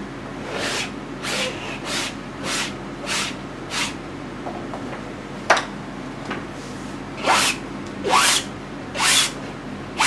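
Brisk rasping strokes of a painting tool across an oil-painting canvas laying on paint, six in quick, even succession, then a single sharp tap, then three longer strokes.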